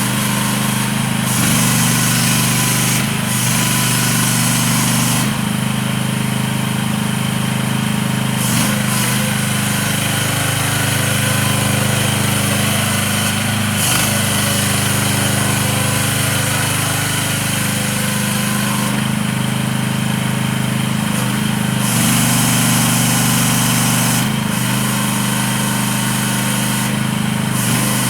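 Small engine of a CFG Industrial QK18R mini excavator running steadily, its pitch sagging for several seconds near the middle before picking up again.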